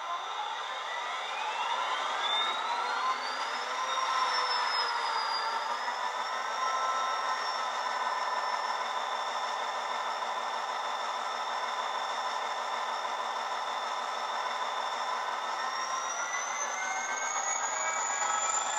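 Simulated diesel locomotive engine sound from a Bachmann Class 57 model's factory DCC sound decoder, played through a pair of 20x20x7mm megabass speakers. The engine note and a high turbo-like whine rise over the first few seconds and then settle to a steady run. They climb again near the end as the model starts to move off.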